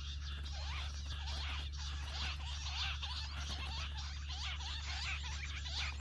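Jungle bush quail calling: a dense chorus of many overlapping short chirps that rise and fall, over a steady low hum.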